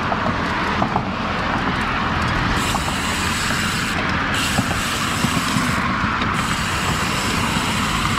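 Steady wind rush and tyre noise from a Cervélo Caledonia road bike riding on a concrete sidewalk, as picked up by a bike-mounted action camera's microphone, with a few light clicks.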